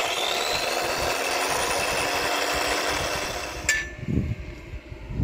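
Handheld power tool running for about four seconds, its whine rising briefly as the motor spins up, then cutting off with a sharp click. A couple of low thumps follow.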